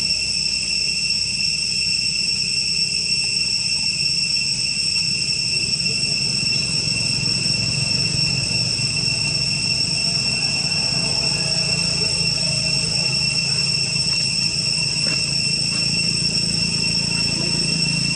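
Insects droning steadily at a high, unchanging pitch, with a low rumble underneath.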